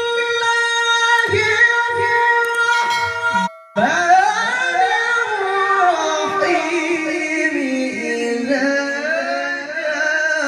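Qur'an recitation in the melodic tilawah style by a very high voice. It holds one long steady note, breaks off briefly about three and a half seconds in, then rises into a new ornamented phrase with wavering pitch.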